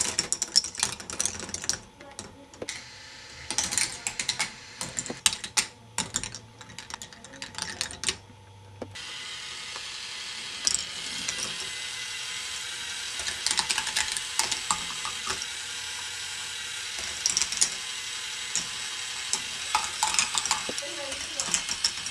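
Plastic K'nex ball machine running: dense, irregular clicking and clattering of balls and mechanism parts. About nine seconds in, a steady hiss comes in under the clicks.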